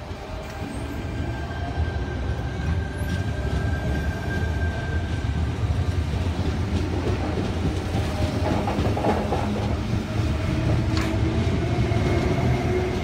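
Sydney Trains Tangara electric suburban train pulling out of the station and running away along the platform. A heavy rumble of wheels and running gear grows louder over the first couple of seconds and then holds steady, with faint whining tones above it.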